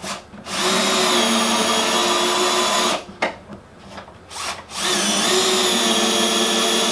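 Cordless drill-driver with a T30 star bit sinking a structural screw through a steel shelf-bracket mounting plate: the motor runs steadily with a whine for about two and a half seconds, stops, and runs again for another stretch after a short pause.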